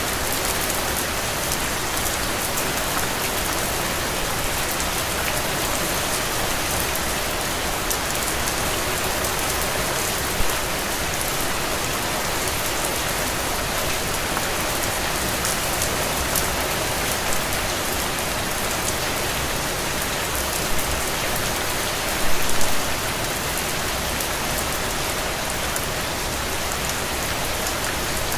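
Heavy, steady rain falling on soil and puddles, with a few brief louder drop hits about ten seconds in and again near 22 seconds.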